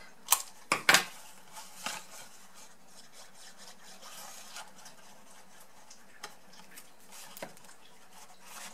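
Scissors snipping the tip off a cardstock flap: a few sharp snips within the first second, followed by quiet rustling of the card being handled, with a few faint clicks.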